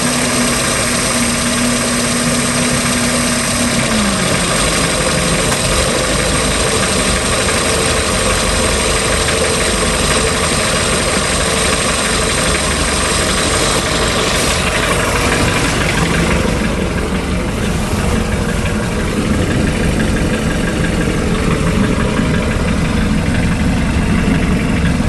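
Mercruiser 3.0L inline four-cylinder marine engine idling with a ticking noise, whose cause the owner does not know. The idle pitch drops a little about four seconds in, and the sound turns duller in the last several seconds.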